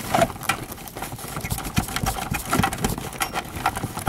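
Coiled radio control cables being handled and tugged inside a cardboard box, making irregular knocks, taps and rustling.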